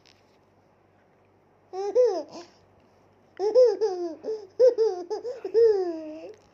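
Toddler girl laughing: one short laugh about two seconds in, then a run of high-pitched giggles from about three and a half seconds in.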